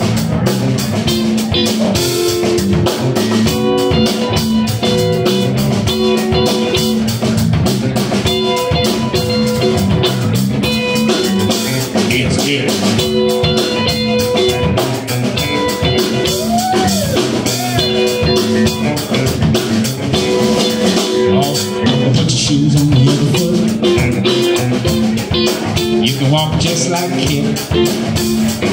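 Live band playing: electric guitar over bass guitar and a Gretsch drum kit.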